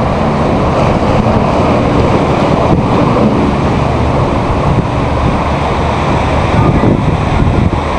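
Strong wind buffeting the microphone, a steady loud rumbling rush, with the sea washing beneath it.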